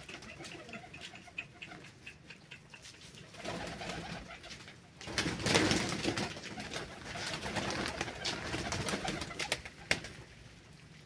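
Domestic pigeons cooing, with a loud burst of rustling about five seconds in and more rustling after it, then a single click near the end.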